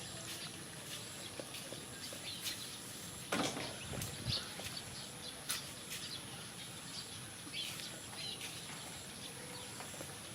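Outdoor background noise with a steady high-pitched whine, scattered light clicks and a few faint chirps.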